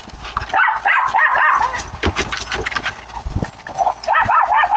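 Dog whining and yipping in short high-pitched rising and falling cries, in two spells: about half a second in, and again near the end.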